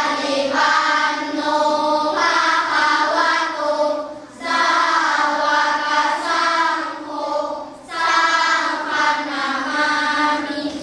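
A large group of schoolchildren chanting together in unison in a Buddhist chant. It comes in three long, sustained phrases with a short breath between them.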